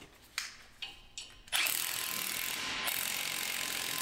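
A few light metal clicks, then about a second and a half in a powered ratchet starts up and runs steadily, undoing fasteners while the front hub of a Nissan Skyline R34 is taken off.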